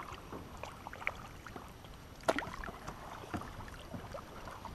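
Double-bladed kayak paddle dipping into the river, with small splashes and water dripping off the blades. A sharper knock comes about two seconds in.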